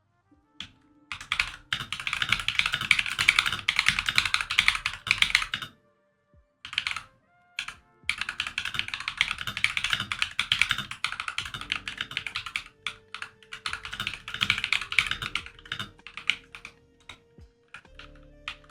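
Fast typing on a 96% mechanical keyboard: dense runs of key clicks lasting a few seconds each, broken by short pauses, thinning to scattered single keystrokes near the end.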